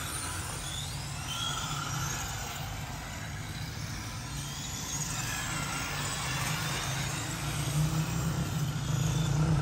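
1/10-scale RC touring cars lapping a cone course on concrete, their motors whining up and down in pitch as they accelerate and slow through the turns, over a low rumble that grows louder near the end.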